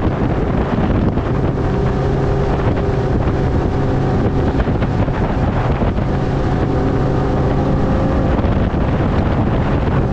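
Bass boat running across the lake under outboard power: a steady engine drone with the hull's water rush, under heavy wind buffeting on the microphone.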